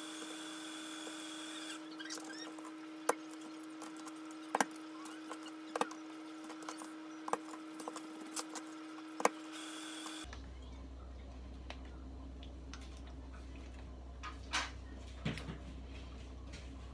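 Small sharp clicks and taps of a small aji-kiri knife against a plastic cutting board and the fish as it pierces blood-drain holes in sardines, a few seconds apart. A low steady hum runs under them and cuts off about ten seconds in.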